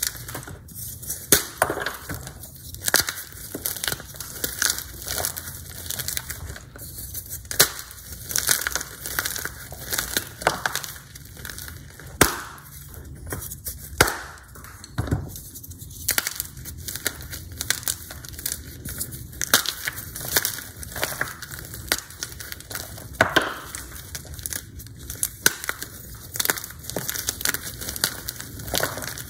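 Hard blocks of Z-Athletic gym chalk crushed and snapped by hand into a pile of powder and fragments: dense, irregular crunching with frequent sharp cracks.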